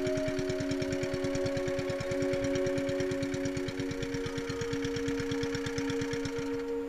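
Small motor-boat engine running at a steady, even chug of about nine beats a second, fading out just before the end.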